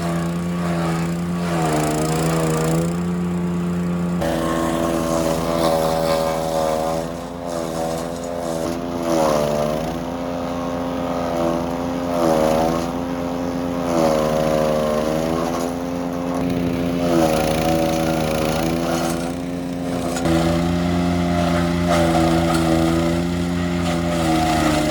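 Wood chipper's engine running steadily, then from about four seconds in its pitch sags and recovers again and again as it takes load.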